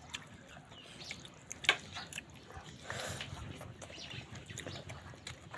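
Close-up eating sounds: a person chewing with wet mouth clicks and lip smacks, with one sharp click about a second and a half in.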